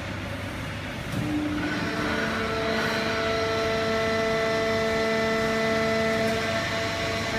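Fully automatic horizontal hydraulic paper baling press and its feed conveyor running: a steady machine hum with several whining tones, which grows louder about a second in.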